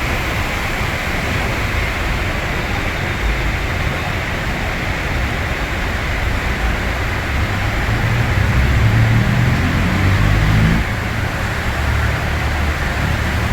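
Heavy rain falling steadily over a city road, with traffic rumbling underneath. The low rumble of a vehicle grows louder about eight seconds in and drops off suddenly near eleven seconds.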